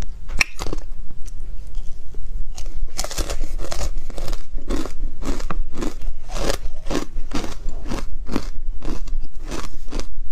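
Hard ice dusted with matcha powder being bitten and chewed close to a clip-on microphone: loud, sharp crunches, a few at first and then coming rapidly from about two and a half seconds in.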